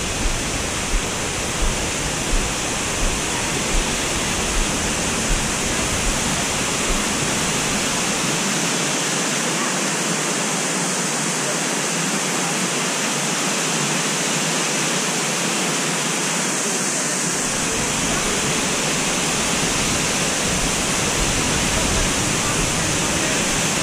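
Steady, full rushing of a tall waterfall pouring down a rock face onto rock and into a shallow pool. In the first few seconds, regular footsteps sound on a wooden boardwalk.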